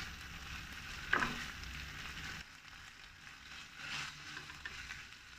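Shrimp sizzling in a thickening sauce in a frying pan while a wooden spatula stirs them, with one scrape about a second in. The sizzle drops to a faint hiss about halfway through.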